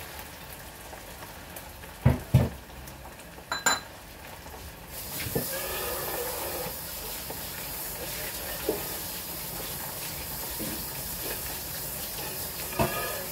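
Pork ribs deep-frying in a small stainless saucepan of oil, the oil sizzling steadily. There are a few sharp knocks in the first four seconds, and the sizzle grows louder about five seconds in and stays up.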